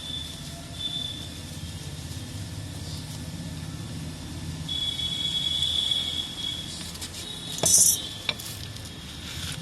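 Hand work on a stuck PVC pipe joint: scraping and clinking of a tool against the pipe and fitting, with high squeaks off and on over a low hum. There is a loud, short, hissy scrape just before the last two seconds, with sharp clicks beside it.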